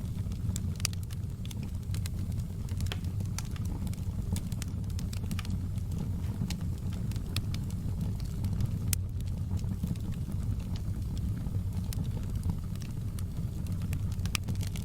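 Wood fire in a fireplace crackling, with frequent irregular sharp pops and snaps over a steady low rumble of burning.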